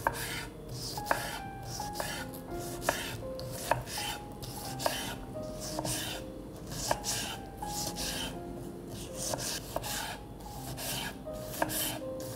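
Kitchen knife dicing red bell pepper on a wooden cutting board: a run of knife taps against the board, with sharper strikes roughly once a second. Background music plays underneath.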